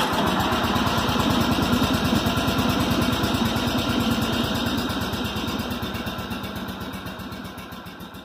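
A small engine running steadily with an even, rapid pulsing beat, then fading out over the last few seconds.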